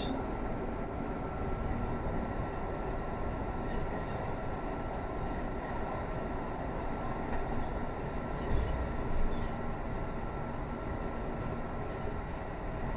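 Interior ride noise of a Mercedes-Benz Citaro C2 city bus under way: steady engine and road rumble with a faint constant whine. A couple of louder knocks about two-thirds of the way through.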